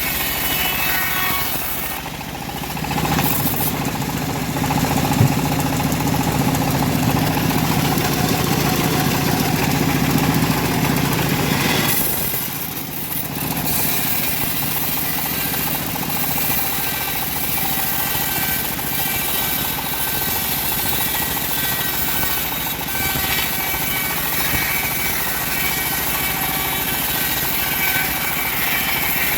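Homemade bandsaw mill running steadily while ripping a semi-dry teak log, a continuous mechanical hum with a whirring blade; it grows heavier for several seconds near the start, then settles back to an even run.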